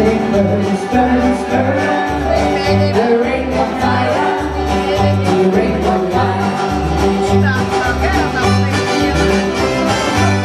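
Background music: an upbeat instrumental tune with a steady bass line stepping between two notes about twice a second.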